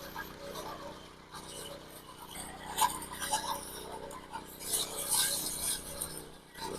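Irregular scraping and clinking of tools working wet concrete, with a sharp knock about three seconds in.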